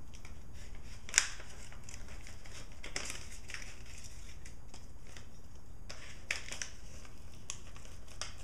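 Folded stack of eight paper layers rustling and crinkling, with scattered sharp snips and clicks as it is pushed through the Leatherman Z Rex's enclosed strap-cutter blade. The cut is a little harder at eight layers.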